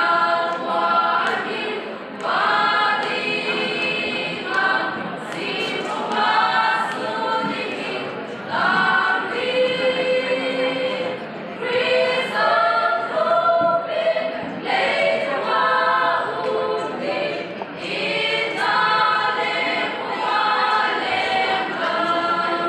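Women's choir singing unaccompanied, in phrases a second or two long that run on without a break.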